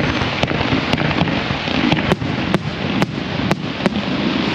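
Fireworks going off: a rapid, irregular series of sharp cracks and bangs, about a dozen in a few seconds, over a steady wash of background noise.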